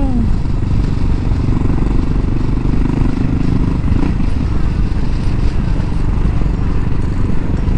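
Motorcycle engine running at a steady road speed, under a constant rush of wind and road noise.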